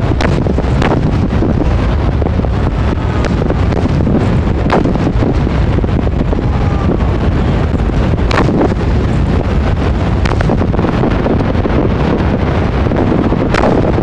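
Fireworks finale barrage: a dense, continuous low rumble of bursting shells, with sharper cracks standing out about eight times.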